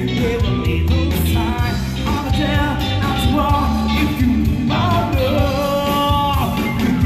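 Loud music: a song with a singing voice over a steady bass and beat.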